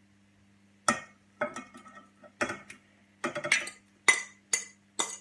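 A metal spoon clinking and scraping against a ceramic plate, pushing cooked fish off it into a bowl: about a dozen short, sharp clinks, some ringing briefly.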